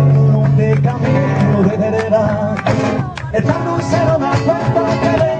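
Live flamenco music: guitar and a wavering sung line, with a few sharp percussive strikes around the middle.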